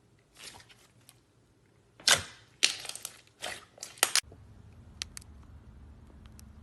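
Slime being played with: a cluster of sharp pops and clicks over about two seconds, the loudest near the middle. A steady low hum sets in just after them.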